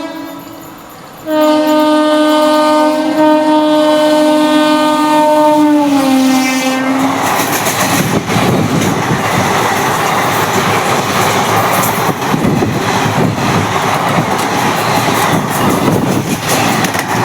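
Indian Railways train sounding a long two-note horn blast for about six seconds, its pitch dropping near the end as the train comes level and goes by. Then the loud, steady rumble and clickety-clack of the train's wheels and carriages rushing past.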